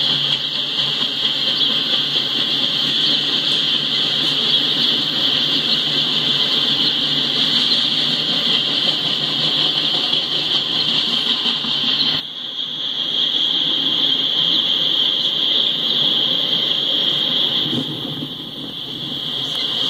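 Freight train autorack cars rolling past, a steady low rumble under a continuous high-pitched screech from the wheels. About twelve seconds in, the sound drops suddenly, then comes back.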